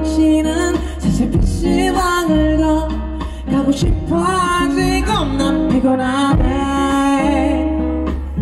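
Live pop performance: a male singer singing into a handheld microphone through the PA, with held notes over band accompaniment and a steady bass line.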